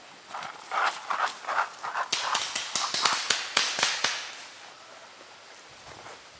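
Paintball markers firing a rapid string of sharp pops, about six a second, which stops about four seconds in.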